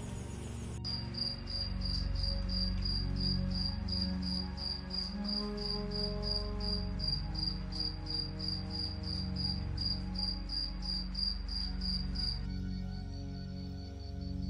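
Cricket chirping in a steady rhythm, about two or three short high chirps a second, stopping abruptly about twelve seconds in, with a few fainter chirps briefly after. Soft ambient music with low sustained tones plays underneath.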